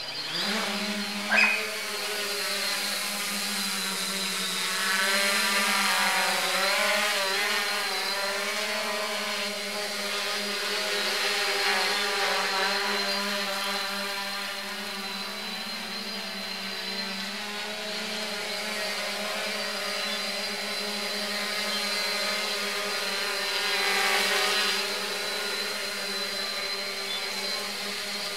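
3DR Solo quadcopter's electric motors and propellers spinning up on the pad and lifting off, then running steadily in flight with the pitch wavering up and down and a steady high whine. There is a brief louder burst about a second and a half in.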